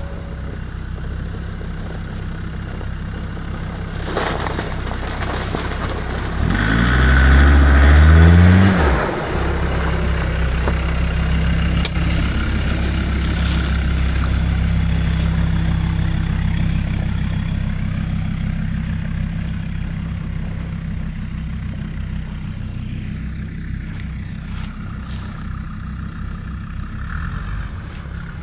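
Land Rover off-roader's engine running steadily, revved hard about seven seconds in with the pitch rising for a couple of seconds before it drops back to a steady drone.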